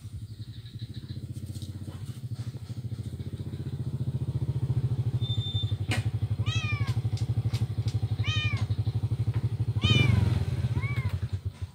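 Kitten meowing four times in high, short calls over the steady low throb of a nearby engine running, which grows louder about four seconds in and drops away at the end.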